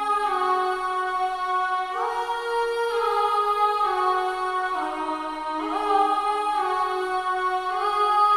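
Sustained, voice-like pad chords from a sampled software instrument, the Kontakt 'Death Piano' E-Bow string pad, moving to a new chord about every second with smooth gliding crossfades.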